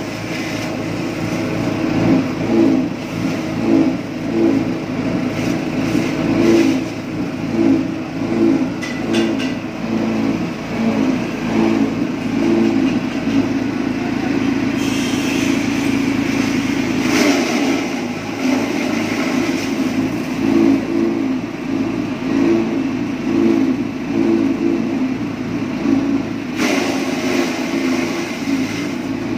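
Engine-driven forage chopper for elephant grass running steadily with a low, pulsing engine hum. Louder, rushing spells come about halfway through and again near the end, as grass is fed through its cutting blades.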